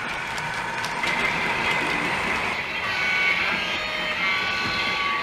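OO gauge model diesel locomotive running with its DCC sound decoder playing diesel engine noise, along with the wagons rolling over the track. A few thin high tones join about three seconds in.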